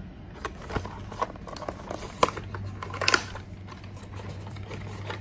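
A small cardboard box being handled and turned over in the hands: scattered light taps and scuffs of fingers on cardboard, over a low steady hum.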